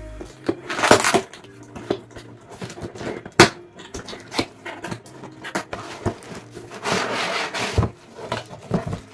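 Cardboard laptop box being opened by hand: cardboard scraping and rubbing, a sharp knock about three and a half seconds in, and a longer scrape near the end as the inner box in its pulp end caps slides out.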